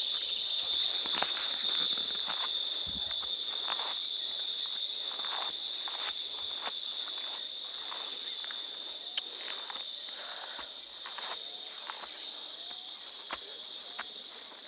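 Insects chirring in one steady high-pitched tone that slowly fades, with soft footsteps on the ground.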